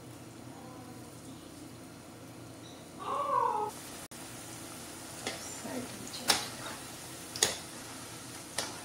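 Small pieces of ground chana dal paste frying in hot oil in a kadhai, a steady sizzle, with a wire skimmer knocking against the pan four times in the second half. A short meow-like call sounds about three seconds in.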